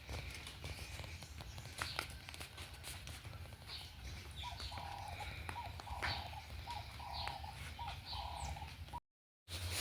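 Birds chirping and calling, with a run of short repeated calls in a lower pitch through the second half and a steady low hum underneath. The sound cuts out briefly near the end.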